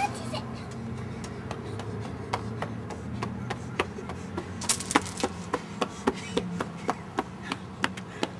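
A quick run of short, sharp taps, about three a second, starting about two seconds in, over a low steady hum.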